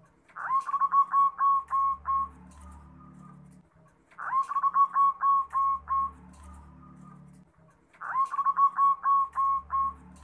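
Zebra dove (perkutut) cooing: three song phrases about four seconds apart. Each is a quick run of about eight short clipped notes near one pitch and lasts about two seconds.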